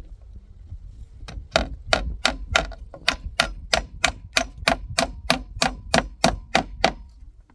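Small hammer tapping a nail into a wooden ridge board: a steady run of quick, light strikes, about three a second, starting about a second in and stopping near the end.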